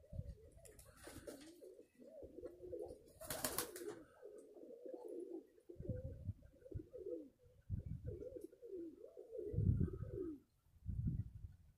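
Domestic pigeons cooing, a near-continuous wavering, throaty coo. There is a brief rushing noise about three and a half seconds in, and low rumbles on the microphone in the second half.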